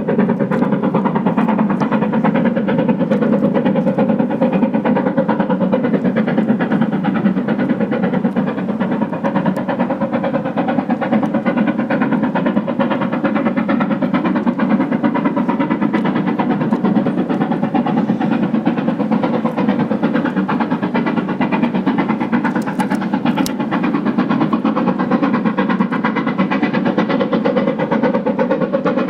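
BR Standard Class 7 steam locomotive No. 70000 Britannia working hard under load, its exhaust beats coming so fast they merge into a loud, steady roar.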